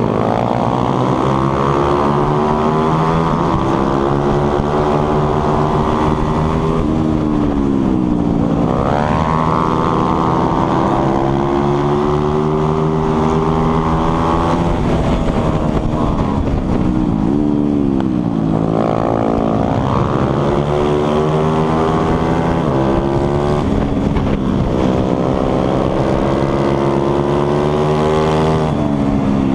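Onboard sound of a 140 cc single-cylinder four-stroke pitbike engine at race pace, revs climbing through the gears and dropping sharply several times as it slows for corners, then pulling hard again.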